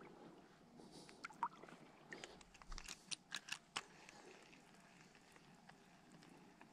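Faint, irregular clicks and crackles of handling noise from a spinning rod and reel, bunched together from about one to four seconds in, then near silence.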